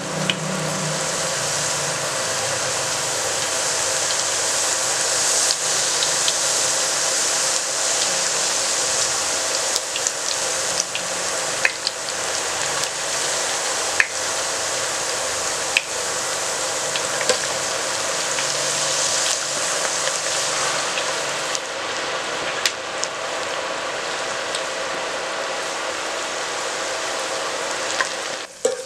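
Thin potato slices deep-frying in hot oil in a saucepan: a steady, dense sizzle with occasional sharp pops.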